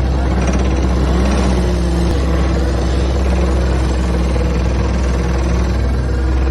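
Engine of a pile-driver and log-grapple machine running steadily: an even, deep hum with no hammer blows.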